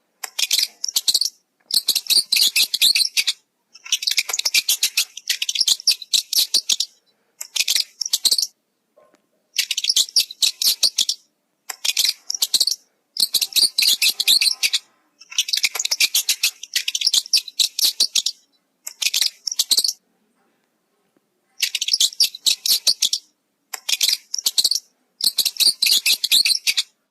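A small bird's rapid, high-pitched chattering chirps in repeated short bursts, each a second or two long, with clean silent gaps between them.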